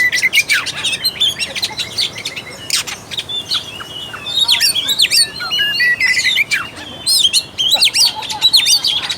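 Oriental magpie-robin (kacer) singing a rapid, varied song of whistles, chirps and sharp clicks, with short pauses between bursts.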